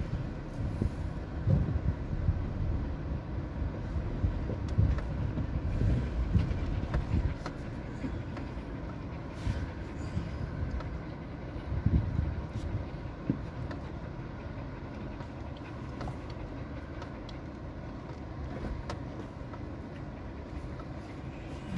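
Inside a Suzuki Jimny's cabin as it crawls down a rough, rocky track: a low vehicle rumble with irregular knocks and jolts as the wheels go over loose rocks. The knocks are busiest over the first several seconds, then the rumble settles steadier and quieter.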